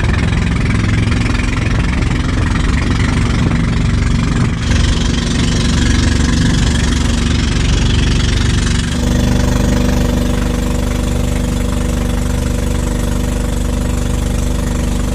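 A boat's engine running steadily and loudly, with wind and water noise. The engine note changes about nine seconds in, settling to a different steady pitch.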